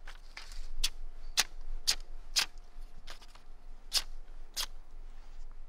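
A freshly sharpened knife slicing thin curls off the edge of a sheet of paper: a series of short, crisp cuts, about two a second, each stroke a quick papery hiss. The clean cuts show the razor-sharp edge.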